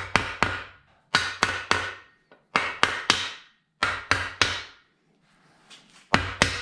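Wooden mallet tapping the main bearing caps down onto an aluminium Teksid 4.6 V8 block to seat them. Five sets of three quick sharp taps, each with a short metallic ring, come about every second and a half, with a longer pause before the last set.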